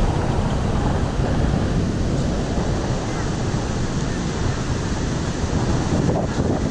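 Wind buffeting the camera's microphone in a steady rumble, with ocean surf breaking in the background.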